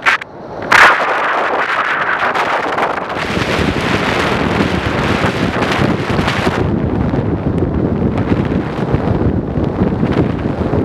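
Wind buffeting a camera microphone in paragliding flight: a steady rushing, with a sharp loud gust burst about a second in. The rushing turns duller about two-thirds of the way through.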